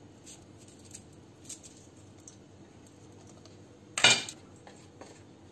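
A few faint clicks and light taps as green chillies are dropped into a non-stick pot of chopped vegetables, then one loud, short knock about four seconds in.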